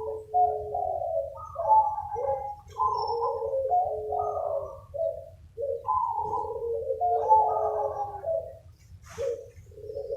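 Several zebra doves cooing and answering one another, their phrases overlapping almost without pause, with a brief lull near the end. A faint low hum runs underneath.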